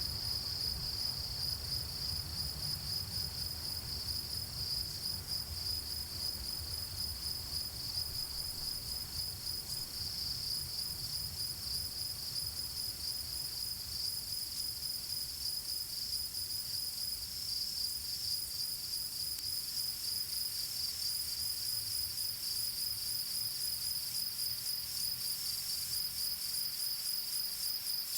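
Crickets chirping in a steady, continuous chorus of fast high pulses, over a low rumble that fades somewhat in the second half.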